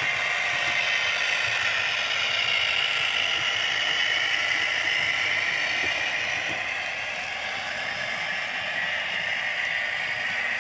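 OO gauge model train running past, a Hornby Class 67 diesel locomotive hauling container flat wagons. Its motor and wheels on the track make a steady mechanical whir and light clatter.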